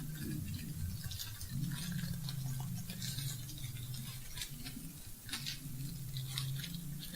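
Parcel packaging being opened by hand: irregular crinkling and rustling with small crackles, over a steady low hum.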